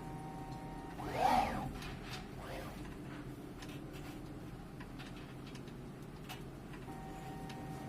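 Automatic transformer soldering machine running with a steady hum. A brief motor whir rises and falls in pitch about a second in, with a smaller one around two and a half seconds and a few light clicks.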